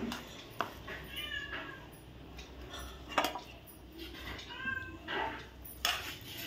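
A steel spoon scrapes through rice in an aluminium pressure cooker and clinks sharply three times against the cooker and a steel plate. A cat meows twice in the background.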